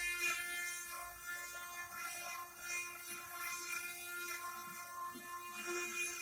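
CNC stone-engraving machine running, its spindle motor giving a steady whine over a faint hiss.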